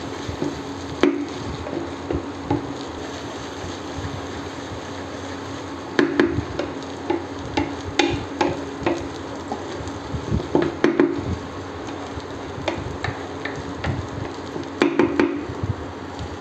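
Wooden spatula stirring and scraping onions and ginger-garlic paste frying in oil in a pan, over a steady sizzle. The spatula knocks against the pan in clusters, about six to nine seconds in, again around eleven seconds and near the end.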